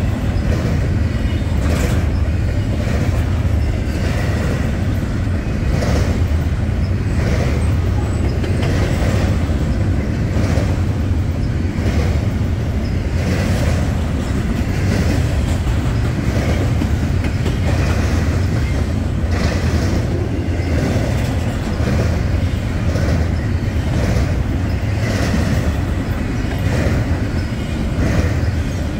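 Double-stack intermodal train's well cars rolling past: a steady heavy rumble with repeated clacks of the wheels over the rail joints.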